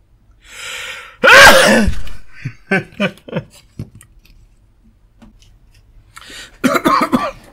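A man sneezes loudly about a second in, with a short intake of breath just before it, followed by a few short mumbled vocal sounds.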